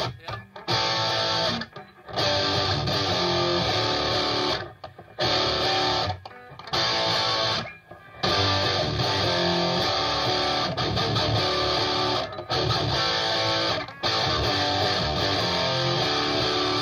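Electric guitar playing a rock riff in short runs, stopping abruptly and starting again several times.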